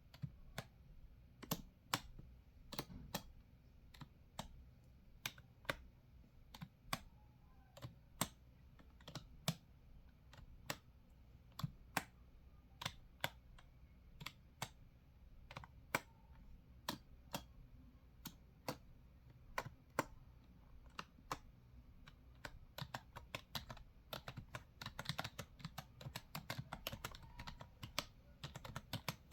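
Computer keyboard keys being pressed: slow, separate key clicks about one a second, turning into quicker continuous typing near the end.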